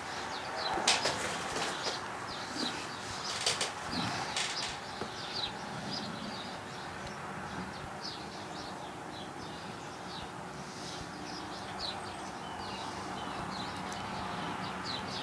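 Small birds chirping on and off in the background, with a few sharp clicks and knocks in the first few seconds.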